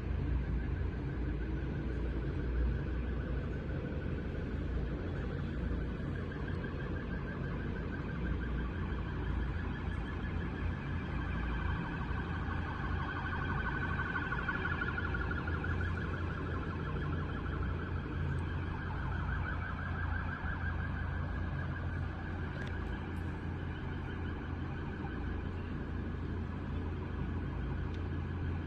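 A trilling, siren-like tone that slowly rises and falls in pitch, over a steady low rumble.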